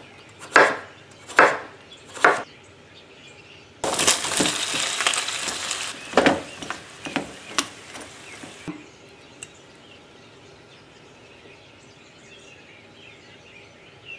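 Three knife strokes cutting through pumpkin onto a wooden chopping board, then pumpkin slices sizzling in oil in a frying pan, with a few knocks of a wooden spoon against the pan as they are stirred. The sizzling cuts off suddenly about nine seconds in, leaving faint room noise.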